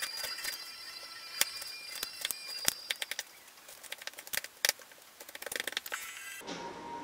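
Kitchen knife slicing and chopping ginger root on a wooden cutting board: scattered sharp knocks of the blade striking the board, with quicker runs of chops about three seconds in and again just before the end. Background music comes back in at the very end.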